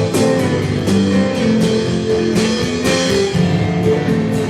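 Live worship band music: electric guitar and bass held under steady drum-kit strokes, without singing.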